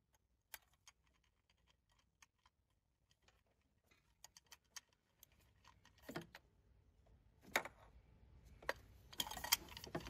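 Faint, irregular metallic clicks and ticks of a socket and extension being worked in a spark plug well to loosen the plug. The clicks are sparse at first, with a few louder ones about six and seven and a half seconds in and a quick run of them near the end.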